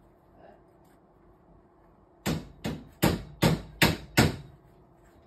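Six quick, sharp knocks, evenly spaced at about two or three a second, as the greased boiler flue pipe is knocked home through the wall.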